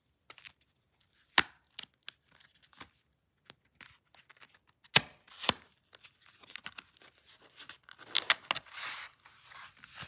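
A cardboard memory-module box being opened and its clear plastic blister tray slid out and handled: sharp plastic and cardboard clicks and snaps, loudest about a second and a half in and twice around five seconds in, then crinkling and rustling of the plastic near the end.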